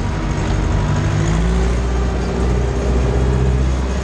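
Ursus C-360 tractor's four-cylinder diesel engine running steadily under load while pulling a cultivator through the soil, heard from inside the cab.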